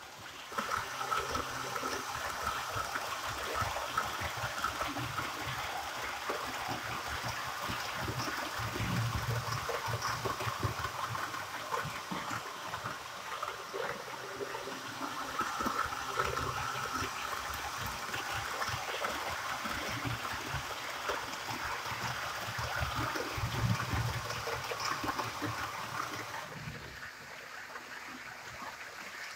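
HO-scale model train running on sectional track: a steady rolling rumble of metal wheels on rail and the locomotive's electric motor, swelling louder twice as it comes nearer.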